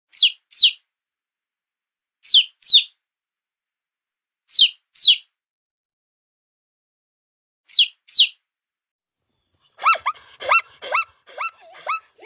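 Animal calls: four pairs of short, high-pitched squeaks, each sweeping down in pitch, about two seconds apart. Near the end comes a quick run of lower calls, each rising in pitch.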